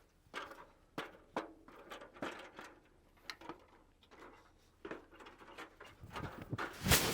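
A string of light knocks and rustles, ending in a louder rushing noise with a low thump near the end.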